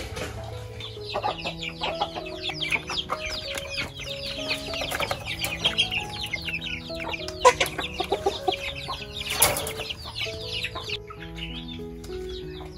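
A cage of chicks peeping: a dense chorus of short, high chirps that fades out about a second before the end, with a sharp tick and a brief rustle in the middle. Background music with held notes plays underneath.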